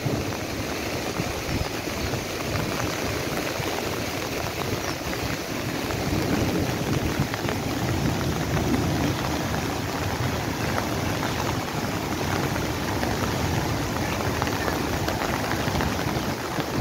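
A hill stream in flash flood, its muddy water rushing over rocks, with heavy rain falling; a steady, unbroken rushing noise.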